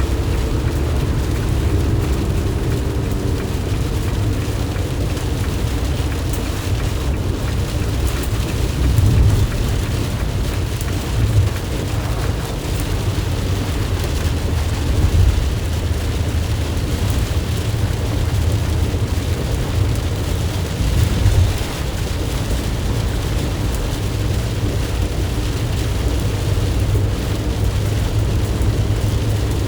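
A 2020 Ram Promaster van driving in heavy rain: a deep, steady road and engine rumble under the hiss of rain and wet tyres. There are a few brief louder swells along the way.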